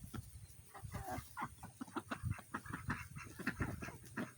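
Chickens clucking in many short, soft, irregular notes while feeding.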